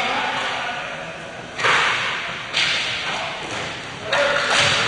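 Ball hockey play in an arena: sharp cracks of stick and ball impacts, three of them spaced about a second apart, each trailing off in a long echo through the hall.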